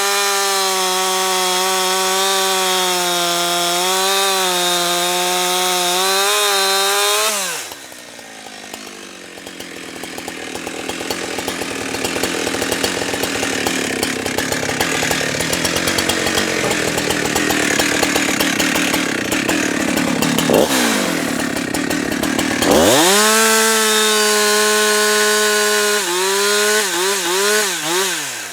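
Husqvarna 365 two-stroke chainsaw running at high revs. After about seven seconds its engine note falls away and a long stretch of rough, unpitched sawing noise takes over. Later the engine revs back up, holds high, then gives several quick throttle blips near the end before dropping off.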